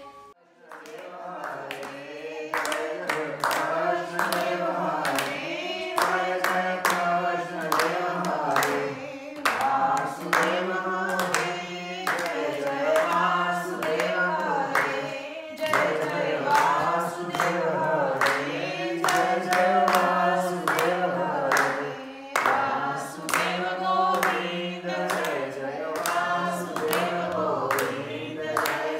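A small group singing a devotional aarti hymn together in unison, with steady hand clapping in time to the song.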